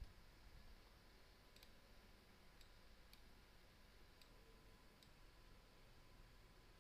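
Near silence with a handful of faint computer-mouse clicks spread through it; the first, right at the start, is the loudest.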